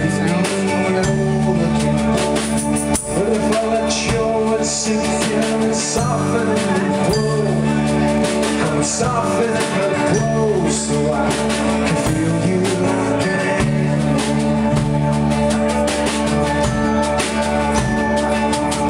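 Live rock band playing a song: strummed acoustic guitar, electric bass and drum kit. A man sings lead over it through roughly the first half, and the rest is instrumental.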